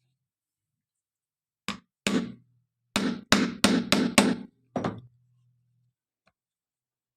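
Hammer blows setting a metal rivet on jeans: about eight sharp strikes over some three seconds, with a quick run of five in the middle.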